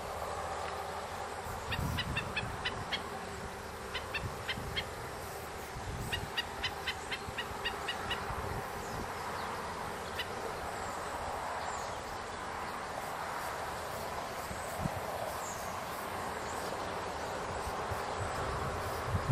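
Black-necked stilt giving sharp, repeated yipping alarm notes, about five a second. They come in three short runs in the first half and one lone note a little later: the adult male scolding an intruder. Under the calls are a steady outdoor hiss and a low wind rumble on the microphone.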